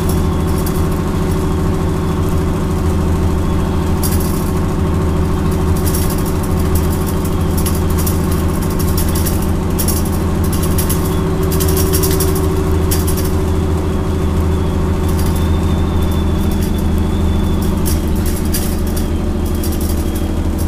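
Bristol LH bus's Leyland diesel engine running steadily under way, heard from inside the saloon, with frequent short rattles from the bodywork. About three-quarters of the way through the engine note drops in pitch.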